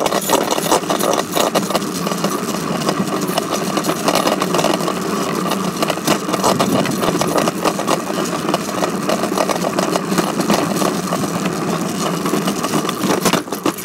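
Bike riding fast over hard ground: a steady rolling rumble from the wheels, with constant rattling and clicking.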